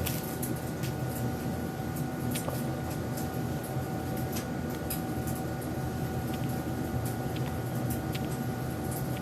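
Steady machine-like hum with a low rumble and a faint steady tone, with scattered light ticks.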